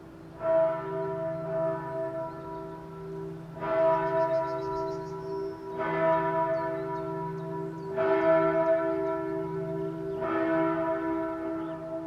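Church bells ringing: five strokes, one every two to three seconds, each ringing on with a long, deep hum.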